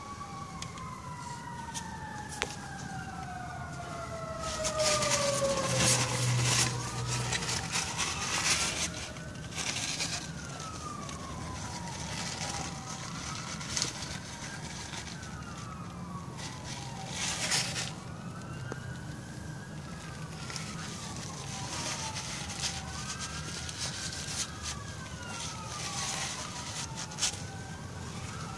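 A siren wails, its pitch rising and falling about every two seconds. Early on a long glide drops steadily in pitch. Several short bursts of hiss come through over it.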